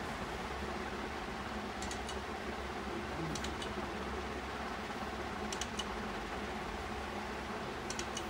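Steady background hiss and hum of a small room, with four faint light clicks spread through.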